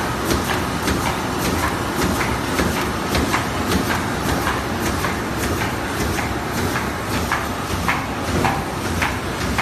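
YFMA-1080 fully automatic high-speed thermal film laminating machine running at production speed: a steady mechanical clatter and drone, with many sharp clicks throughout as printed sheets are fed and carried through.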